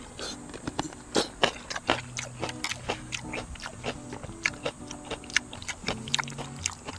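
Close-miked eating: a person chewing, with many short sharp clicks and smacks several times a second, over light background music.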